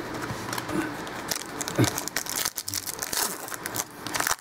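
Shiny wrapper of a football trading-card pack being torn open and crinkled by hand: a run of irregular crackles and rustles.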